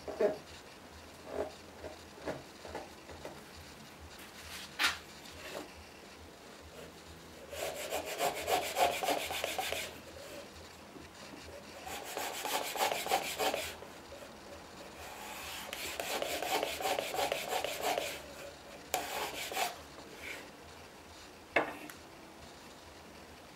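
Shop-built long-based hand router plane cutting wood: three scraping passes of about two seconds each and a shorter fourth, with a few light knocks as the plane is moved and set back on the board.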